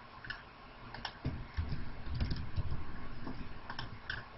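Computer mouse clicking: a scattered run of light, sharp clicks as drop-down menus are opened and options chosen, over a low rumble.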